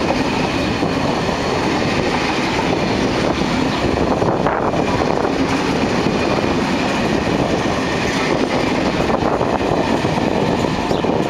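SNCF Corail passenger coaches of a departing diesel-hauled train rolling past close by: steady wheel-on-rail noise that lasts until the last coach goes by near the end.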